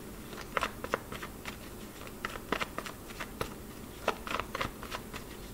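Tarot deck being shuffled by hand: a run of quick, irregular soft ticks and slaps of cards against each other.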